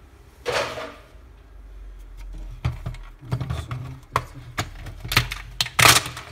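Plastic housing of a cordless handheld vacuum cleaner being handled and pried apart: a rustle early, then irregular plastic clicks and knocks, with the loudest burst near the end as the shell halves come open.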